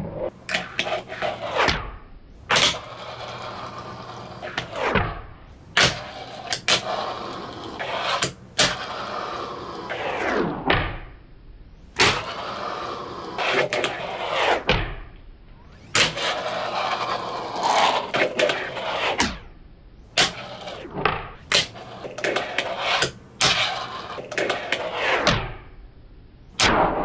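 Fingerboard wheels rolling on a wooden desktop, with repeated sharp clacks as the board's tail pops and the board lands during flatground tricks.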